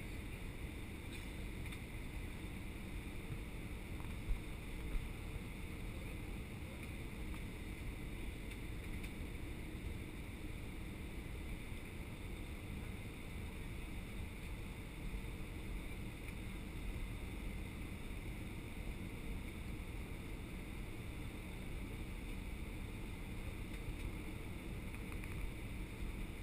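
Steady cabin noise inside an Airbus A319 on final approach: a low rush of airflow and jet engine with a steady higher hum over it. Two short clicks come about four and five seconds in.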